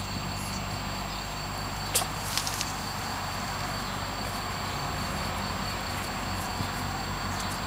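Steady outdoor background noise with a faint high whine, and a few light clicks about two seconds in; no barking or yipping.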